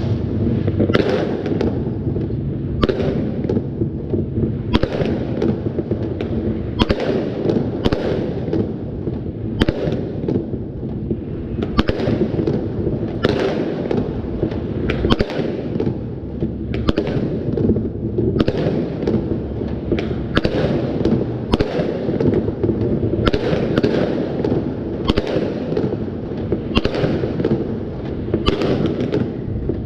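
Many fireworks and firecrackers going off at once: a continuous low rumble of bangs with sharper cracks about one or two a second.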